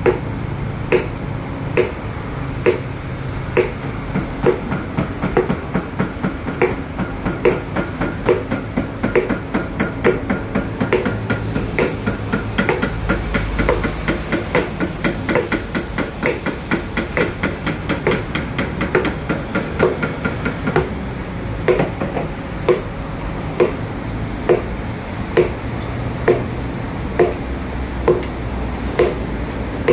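Wooden carver's mallet tapping a chisel into a wood carving in steady, regular blows, about one a second, quickening to two or three a second in the middle, then slowing again, over a steady low background noise.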